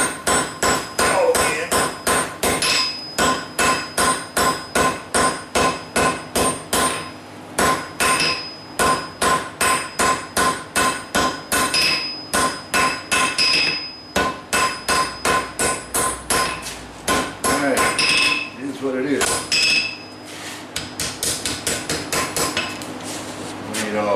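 Three-pound hammer striking red-hot stacked steel cable on an anvil, about three blows a second with the anvil ringing after each: setting a forge weld in the cable. The hammering pauses briefly twice and ends with a run of quicker, lighter blows.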